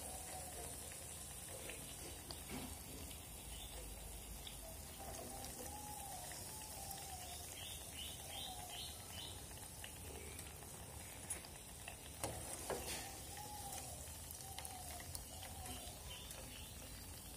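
Gram-flour-battered jack leaves deep-frying in a pan of hot oil, a steady low sizzle. A metal slotted spatula gives a few sharp clinks against the pan about eleven to thirteen seconds in as the golden pieces are lifted out.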